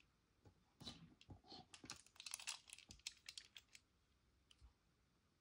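Faint, quick clicking and rattling of die-cast toy cars being handled and set into the drag strip's starting gate. The flurry runs from about a second in to nearly four seconds in, then stops.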